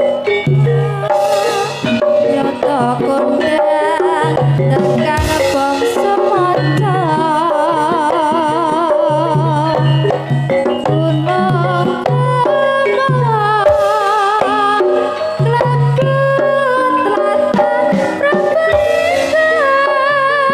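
Javanese campursari music played live: sustained pitched percussion, a repeating low bass note and hand-drum patterns, with a wavering vocal-like melody weaving over it.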